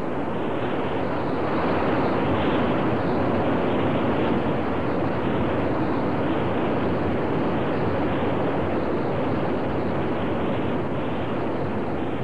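Steady rushing noise of a torrent of mud, water and debris: an even, unbroken wash of sound with no rhythm or tone.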